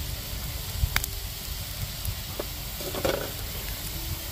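Quahog clams sizzling in a cast iron pan with a little beer over a campfire, with a few sharp clicks and a short handling noise about three seconds in as clams are set on the metal grill.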